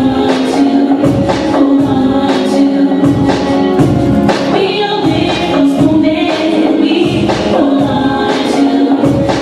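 Loud music with a steady beat and singing.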